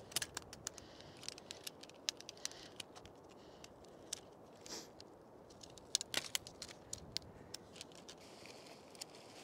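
A quick irregular run of light clicks and small rattles, several a second in spells, over a faint hiss.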